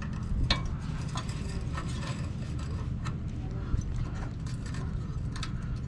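Irregular clicks and knocks of hand tools on metal as a rear stabilizer jack is unbolted from the camper's frame, about one or two a second, over a steady low rumble.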